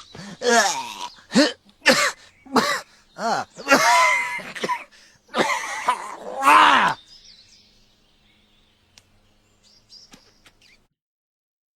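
A man wheezing and gasping for breath: a rapid run of about ten short, strained, pitched gasps, the last and loudest ending about seven seconds in. A few faint clicks follow.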